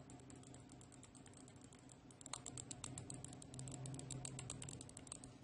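Light plastic clicks from a small Ensoho E116CB wireless mouse being handled and clicked close to the microphone: a few scattered at first, then a rapid run of about ten clicks a second from about two seconds in until near the end.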